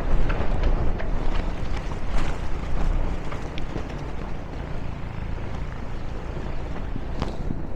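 Snowstorm wind buffeting the microphone: a heavy, steady low rumble with scattered light ticks over it.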